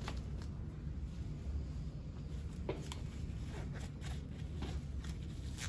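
Soft clicks and light rustling of gloved hands handling oral-care supplies (a foam swab, a small bottle, a plastic basin) at a table, over a steady low hum.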